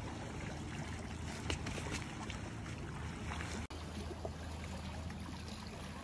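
Steady shoreline noise of water washing against rocks, with a few faint knocks. The sound drops out for an instant about two-thirds of the way through.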